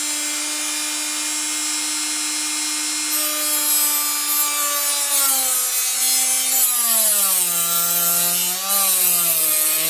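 Rotary tool in a wooden jig spinning a small sanding drum, with a steady whine; from about five seconds in its pitch sags and wavers as a 4 mm wooden dowel is fed against the drum, and a sanding hiss grows louder.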